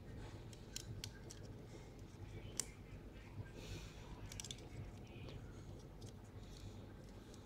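Plastic model-kit parts being handled and fitted onto a peg: faint scattered clicks and rubbing of hard plastic, with one sharper click about two and a half seconds in.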